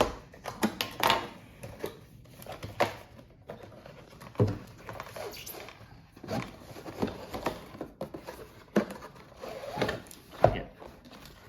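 Product box and packaging being opened and handled by hand: irregular clicks, taps and rustles of card and plastic, with a couple of sharper knocks, the sharpest near the end.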